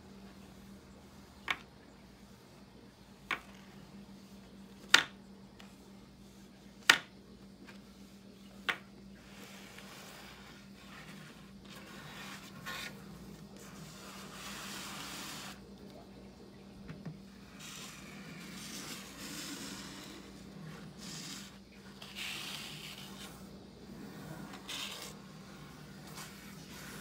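Fingernails on a book: five sharp taps on the cover about two seconds apart, then scratching and rubbing across the cover in uneven strokes.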